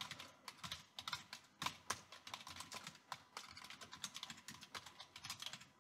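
Computer keyboard typing: faint, quick, irregular keystrokes as commands are entered in a terminal.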